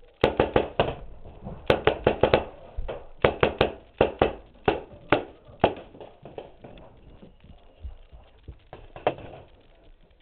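Paintball marker firing in quick strings of several shots, about five or six a second, then single shots spaced further apart, with one last shot near the end.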